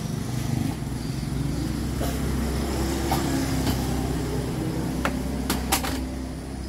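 Road traffic passing on the street, with engines running as a steady low hum. About five seconds in come a few sharp clicks and knocks.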